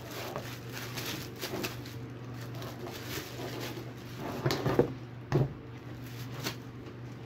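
Clear plastic bag crinkling and rustling as a jigsaw is pulled out of it, with handling knocks and a soft thump about five seconds in as the saw is set down on a table. A steady low hum sits underneath.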